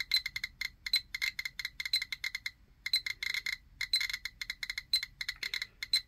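GQ GMC-600+ Geiger counter beeping out its counts: short, high beeps in rapid, irregular clusters, at a rate of around 900 counts per minute. Its pancake tube is held right up against a radioactive object, well above background.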